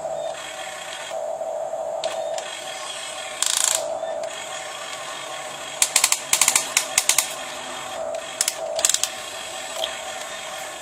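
Small electric motors and gearing of a 1:15 scale RC excavator whining in short stretches. Two bursts of rapid ratchet-like clicking come a little past the middle.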